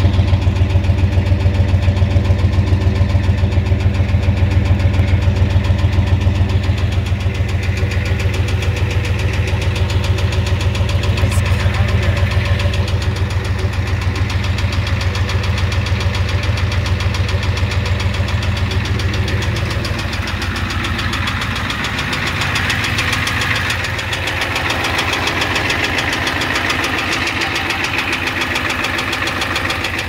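Ford 7.3L IDI V8 diesel idling steadily, heard at the tailpipe, with the engine knock the owner is chasing. About two-thirds of the way in the deep exhaust rumble drops away, leaving a thinner, higher engine clatter.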